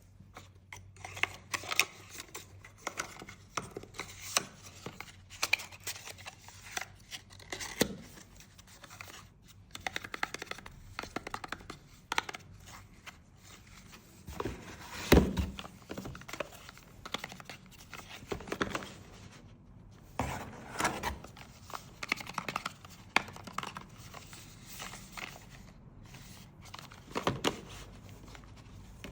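Cosmetics packaging being handled close to the microphone: a scattered run of taps, rustles and light knocks, with one louder knock about halfway through.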